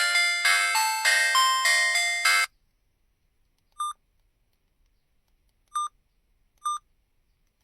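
Huawei A318+ mobile phone playing a ringtone melody of quick chiming notes, about three a second, which stops suddenly about two and a half seconds in. Three short high beeps follow.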